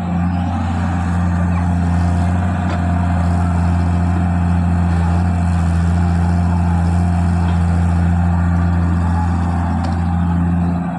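Diesel engine of heavy earth-moving machinery running steadily at an even speed, a deep constant drone with no revving.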